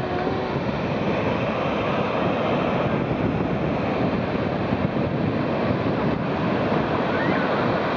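Ocean surf breaking and washing in, a steady loud rush of water, with wind buffeting the microphone.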